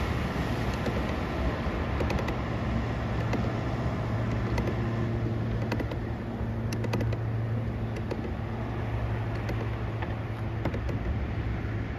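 Tractor engine running steadily while it hauls a fishing boat up out of the sea, a low even hum with a few faint knocks.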